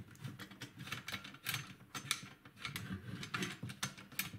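Irregular clicking and clattering of hard objects being handled and moved about on a workbench, a rapid scatter of small knocks and rattles.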